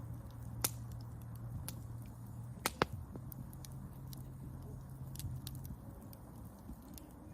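Wood fire crackling, with scattered sharp pops: a strong pop about a second in, the loudest pair just before the middle, and smaller snaps in between, over a low steady rumble.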